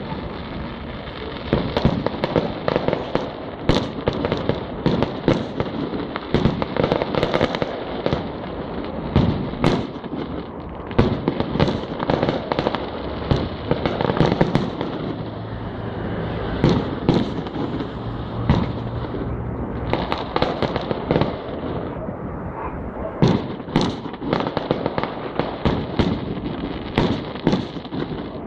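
Fireworks display: many sharp bangs in quick, irregular succession over a constant crackle, with no pause.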